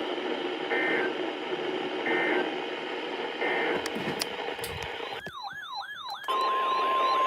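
NOAA Weather Radio emergency alert over radio hiss: three short bursts of screechy SAME header data tones, then, from about five seconds in, a siren-like warble that swoops down about four times a second, joined near the end by the steady single-pitch 1050 Hz Weather Radio alert tone.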